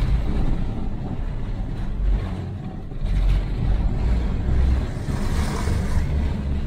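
Jeep on snow tracks driving slowly, heard from inside the cab as a steady low engine and drivetrain rumble.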